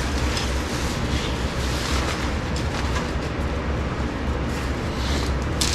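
Wind buffeting the microphone: a steady low rumble and rushing noise, with a brief rustle near the end.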